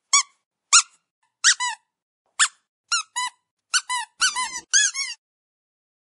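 Dog's squeaky toy squeaked over and over: about a dozen short, high squeaks, some in quick pairs, each rising and then falling in pitch. They come faster and closer together toward the end and stop about five seconds in.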